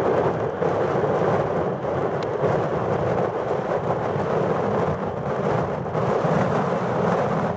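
Steady, loud jet roar from a Boeing F-15QA Eagle's twin F110 turbofans as the fighter climbs away after a touch-and-go.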